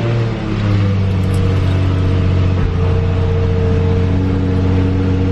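Car engine idling just after starting: the start-up rev settles down in the first half second, then it runs at a steady idle.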